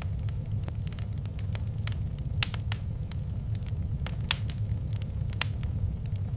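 Wood fire burning in a fireplace: a steady low rumble of flames with frequent irregular crackles and a few louder pops.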